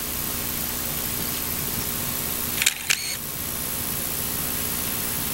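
Single-lens reflex camera shutter firing: two sharp clicks in quick succession about halfway through, over a steady hiss.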